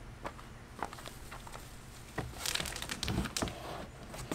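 Cardboard box and packing material rustling and scraping as a plastic-bodied cordless lawn mower is tilted and lifted in its shipping box: a few light clicks and knocks at first, then a longer stretch of scraping with low thumps about three seconds in.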